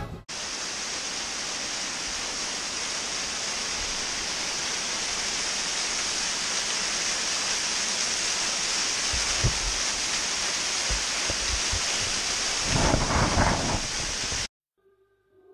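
Small waterfall cascading over rock ledges: a steady close rush of falling water, with a few low thumps in the second half, cutting off suddenly near the end.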